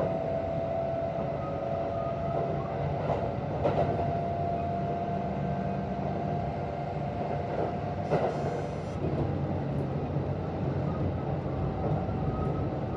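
Kintetsu 1026 series electric train heard from inside the car: the VVVF inverter's steady whine over the running rumble, with a couple of rail-joint clacks about four and eight seconds in. This set's inverter mixes a hoarse, groaning noise into its usual sound, which the uploader takes for a deteriorating, faulty inverter.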